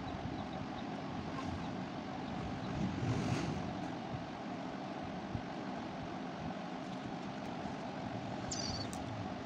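Steady rushing background noise, like wind or distant traffic, with a brief high chirp near the end.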